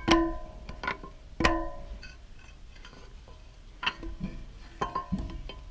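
Metal-on-metal strikes while a broken bearing is worked loose from the wood chipper's flange. There are two sharp, ringing clanks about a second and a half apart near the start, then a few lighter clinks.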